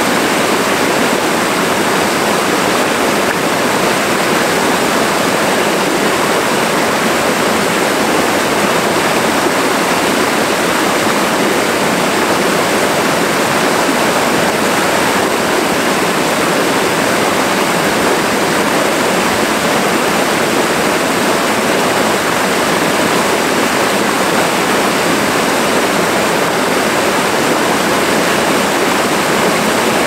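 Rainforest stream running steadily, a constant, unbroken rush of flowing water.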